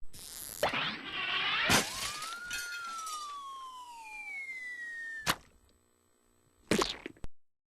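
A run of cartoon sound effects: two sharp hits in the first two seconds, then a long descending whistle that ends in a sharp crash about five seconds in. A short noisy burst follows near the end.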